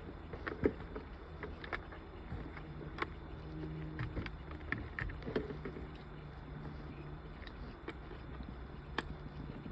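Scattered small clicks and taps from handling the car's dash wiring and radio parts, over a low steady hum.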